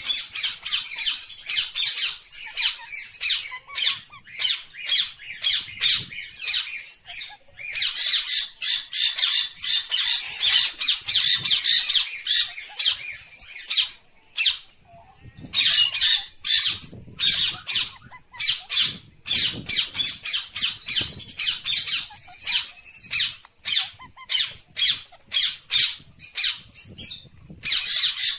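Parrot squawking in fast runs of short, high, harsh calls, with a few brief pauses.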